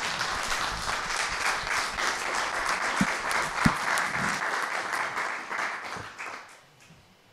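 Audience applauding, many hands clapping at once; the applause dies away about six seconds in.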